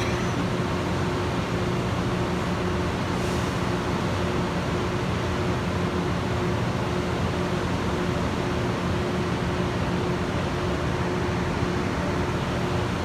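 Diesel engines and cooling equipment of a Loram rail grinder running steadily, a constant low machine drone with a steady hum.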